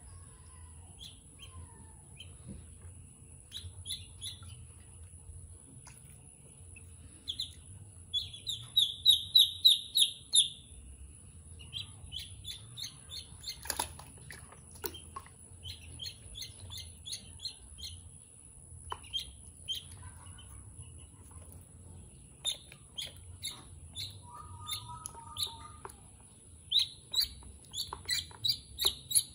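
Ducklings peeping: runs of short, high, rapidly repeated peeps, loudest about eight to ten seconds in and again near the end.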